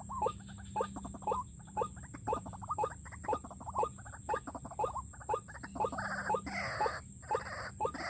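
White-breasted waterhen calls: a short rising note repeated about twice a second, the call used as a pikat lure to draw waterhens to the snare. Several harsh rasping bursts join in about six seconds in.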